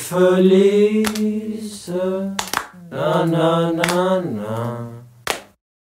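A single voice singing long, held notes in a few phrases, with a few sharp clicks between them. The singing stops about four and a half seconds in.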